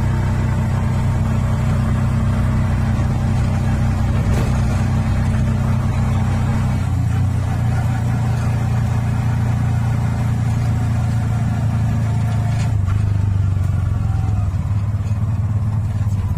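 Bajaj RE three-wheeler's single-cylinder engine running steadily while driving, heard from inside the cab. Its note shifts about seven seconds in and again near thirteen seconds.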